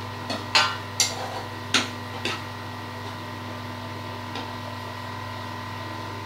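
A metal spoon clinking against a cooking pan about five times in the first couple of seconds while stirring a thick egg chilli gravy, over a steady hum.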